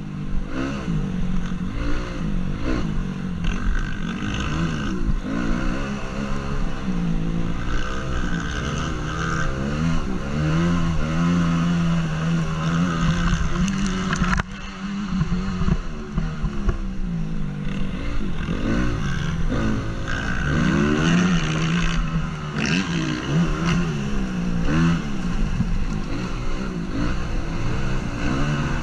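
A 2014 Honda CRF 250 motocross bike's single-cylinder four-stroke engine, heard close up from the rider's helmet, revving up and backing off again and again as the rider works the throttle around the track. The sound dips sharply for a moment about halfway through.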